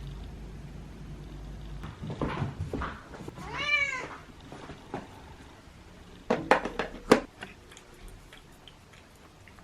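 A domestic cat meows once, a single call that rises and then falls in pitch, about a third of the way in. Sharp knocks and clicks come just before it and again in a cluster about two-thirds of the way through, the loudest being a single sharp knock.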